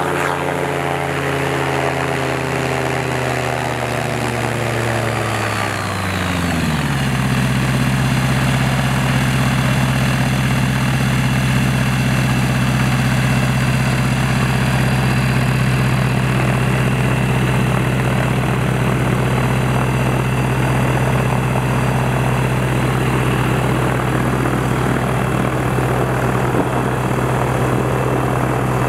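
Gyroplane's engine and pusher propeller coming down from high power: the pitch falls steadily over the first several seconds, then the engine idles at a steady note.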